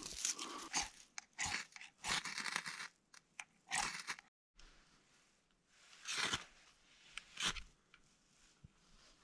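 Steel knife blade scraping and shaving wood on a log in short, sharp strokes: a quick run of them in the first four seconds, then two more about six and seven and a half seconds in.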